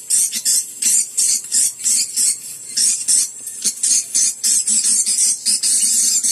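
Swiftlets twittering: a steady run of short, high chirps, about three a second.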